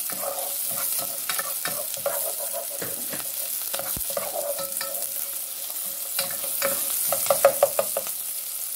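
Chopped red onion sizzling in a little hot olive oil in a non-stick saucepan, with a plastic spoon stirring and scraping against the pan. The stirring ticks come thickest and loudest near the end.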